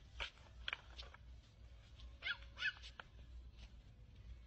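A small dog barking in several short, high-pitched yaps that come in quick clusters, over a faint low rumble.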